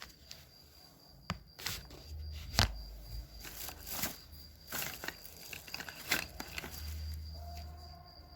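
Utility knife trimming off excess glass-fibre mat from a fibreglass part: a series of short, sharp cutting snicks and scrapes at irregular intervals.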